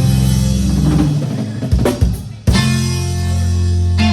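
Live band with drum kit and bass playing: sustained notes, a few sharp drum hits about two seconds in, then a loud held chord.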